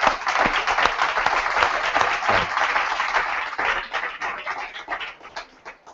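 A small indoor audience applauding, starting strongly and thinning out to a few scattered claps near the end.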